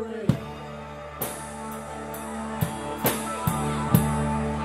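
Live rock band playing a slow instrumental passage: drum-kit hits and cymbal crashes over held electric guitar and keyboard chords.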